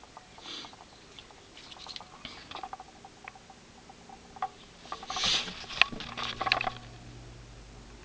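Handling noise: light rustles and small clicks, with a louder rustle about five seconds in and a few clicks after it, then a faint steady low hum near the end.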